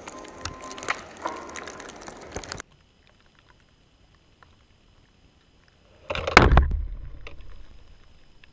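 Ski edges scraping and chattering on snow as a racer carves through a gate, cutting off to near quiet. About six seconds in there is a sudden loud rush with a deep thump as a racer sweeps past the low camera at the gate, fading out over the next two seconds.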